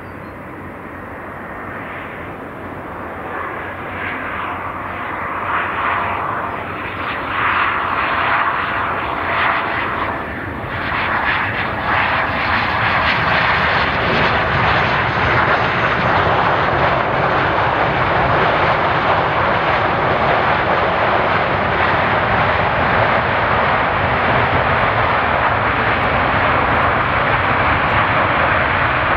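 Bombardier Global 5000 business jet landing, its two Rolls-Royce BR710 turbofans growing louder through the approach with a faint falling whine. The jet noise then stays loud and steady as it rolls out along the runway.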